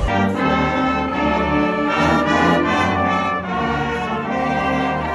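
College pep band's brass section playing a loud, full tune of sustained notes, with trumpets and trombones.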